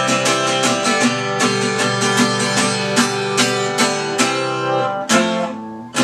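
Acoustic guitar strummed in a steady rhythm, then a final strummed chord about five seconds in that rings out and fades.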